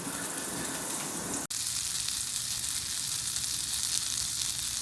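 A small bit of butter sizzling steadily in a hot skillet. The sizzle breaks off for an instant about a second and a half in, then carries on.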